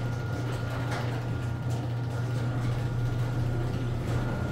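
Chamberlain garage door opener's motor running steadily as it lowers the door, a constant low hum with a faint high whine; the motor grinds the gear as it drives.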